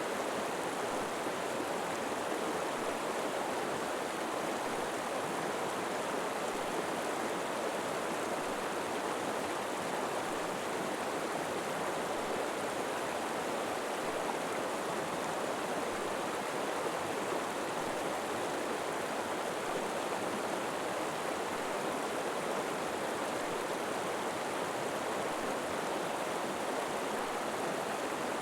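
River water flowing steadily over rocks: an even, unbroken rushing with no other sounds.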